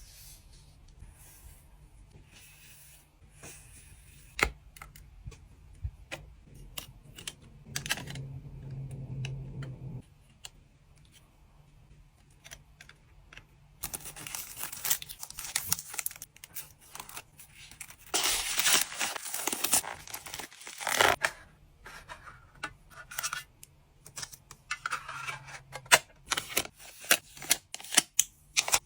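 Hand-packing sounds: rustling and crinkling of packing material with a stretch of tearing, and many sharp clicks and taps, coming thick and fast near the end.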